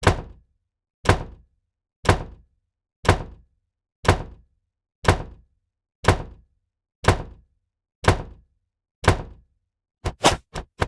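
A short, dull thunk sound effect struck ten times, one each second, each dying away quickly into silence. Near the end the strikes speed up to several a second.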